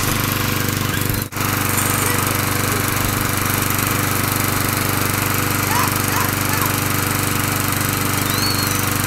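Yard-Man walk-behind lawn mower's small single-cylinder engine running steadily with a fast, even rattling beat, on straight octane booster with octane booster in its oil. The sound drops out for an instant about a second in.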